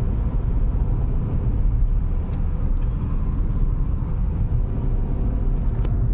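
Steady road and engine rumble heard from inside the cabin of a Toyota Hyryder mild-hybrid SUV cruising at highway speed, with a faint click near the end.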